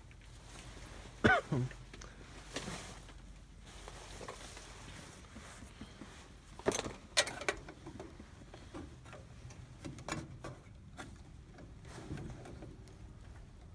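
Scattered clicks, clinks and scrapes of a screwdriver and screws against the sheet-metal bracket of an air handler's electric heating element. The loudest clicks come about a second in, with a short squeak, and again twice around seven seconds in.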